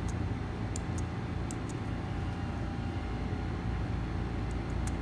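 Steady low background rumble with a faint constant tone above it, and a few faint light ticks scattered through it.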